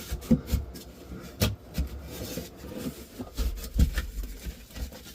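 A piece of drywall being handled and pushed into a patch hole: scattered knocks, taps and low thuds with some scraping and rubbing, the sharpest knocks about a second and a half in and near four seconds.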